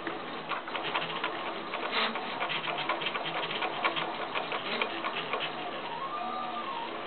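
Stepper motors of the AF1 3D printer driving the print head as it lays down a small ring: a fast patter of ticks, then from about six seconds in a whine that rises and falls in pitch, over and over.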